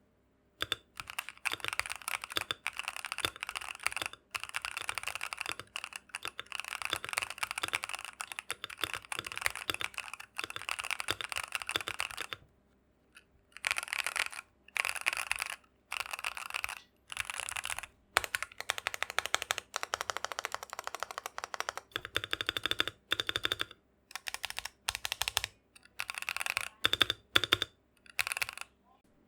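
Keychron Q1 mechanical keyboard being typed on quickly, in runs of rapid key clacks broken by short pauses, with a pause of about a second near the middle and shorter bursts towards the end.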